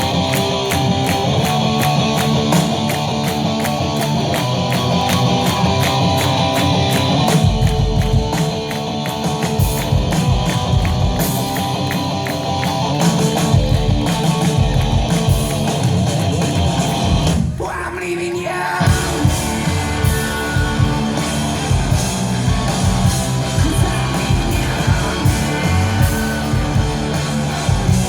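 Live rock band playing loud with distorted electric guitars, bass and drum kit, cymbals keeping a steady beat. About two-thirds through, the band drops out for a moment, then comes back in heavily.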